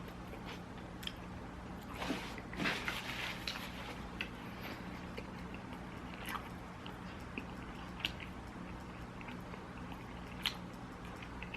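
Close-miked eating: a person chewing and biting food, with a denser run of wet smacking and crunching about two seconds in and scattered sharp clicks, over a low steady hum.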